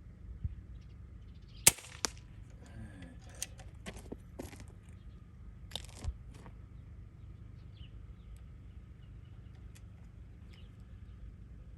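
A single air rifle shot: one sharp crack, with a second, smaller crack about a third of a second after it. Several light clicks follow over the next few seconds.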